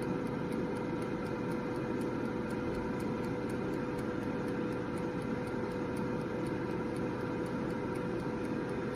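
Gaabor 4.5L air fryer running: its fan makes a steady hum with a held mid-pitched tone. Underneath is a faint, even ticking from its mechanical timer dial.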